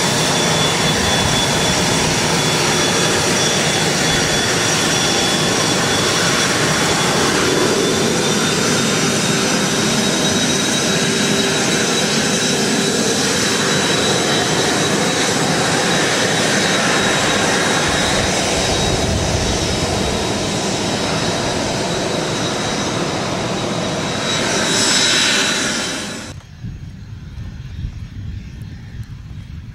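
Twin Williams FJ44 turbofans of a Cessna Citation CJ2 running at taxi power close by: a steady jet roar with a high, thin whine over it. It swells briefly near the end, then drops off abruptly to a much fainter low background.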